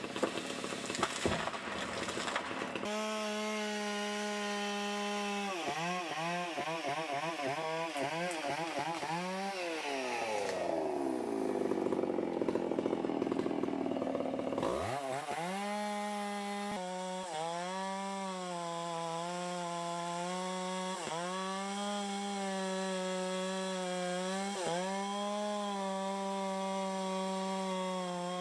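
Chainsaw cutting wood in tree falling. The saw comes up to high revs about three seconds in, and its pitch wavers and dips as the chain loads in the cut. About ten seconds in the revs sink low for several seconds, then climb back to a steady high pitch with brief dips.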